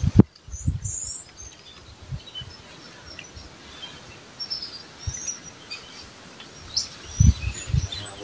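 Small birds chirping in short, scattered calls over a steady outdoor hiss, with a few low thumps and bumps near the start and again about seven seconds in.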